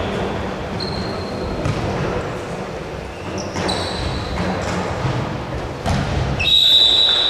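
Basketball game in an echoing gym: a ball bouncing on the court floor, with several short high squeaks and a longer, louder high squeal near the end.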